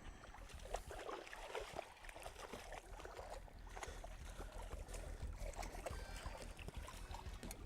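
Faint water lapping against a small boat's hull, with many small scattered clicks and knocks over a steady low hum.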